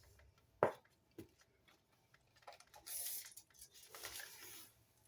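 Quiet handling sounds: a sharp click just over half a second in, then soft rustling and rubbing twice.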